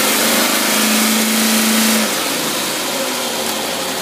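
Engine running on a Rochester Quadrajet marine four-barrel carburetor, held at raised revs with a steady hum and a loud airy intake rush. About two seconds in the steady note stops and the sound eases off as the throttle comes back.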